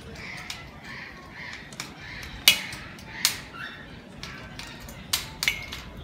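A cockatoo making four short, sharp, loud sounds, two around the middle and two close together near the end, over faint background noise.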